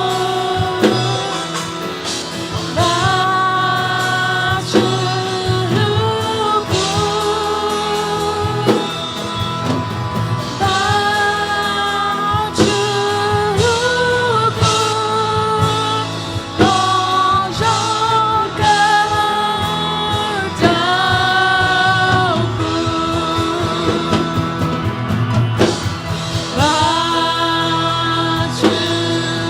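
Worship song: singing over a band with a steady beat.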